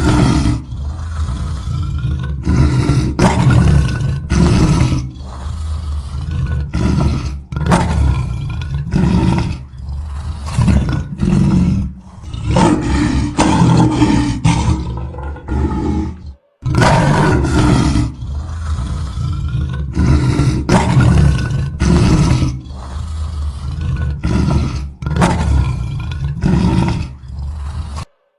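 Lion roaring: a loud series of deep roars and grunts, one after another, breaking off briefly about halfway through and then starting again.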